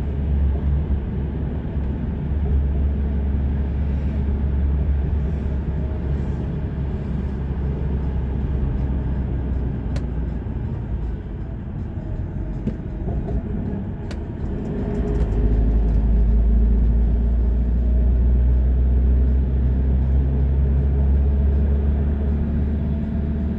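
Steady road and engine rumble of a moving car, easing off a little around the middle and growing louder again about two-thirds of the way in.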